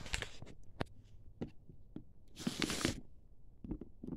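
Packaging of a boxed firework cake being handled: scattered light taps and clicks, with a short rustle of cardboard or wrapping about two and a half seconds in.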